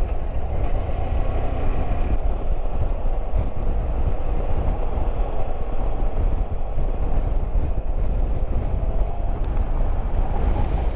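BMW F700GS parallel-twin motorcycle riding at a steady speed: a constant engine drone under a heavy rush of wind noise on the microphone.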